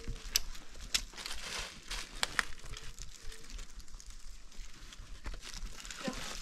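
Irregular rustling and crinkling with scattered sharp clicks.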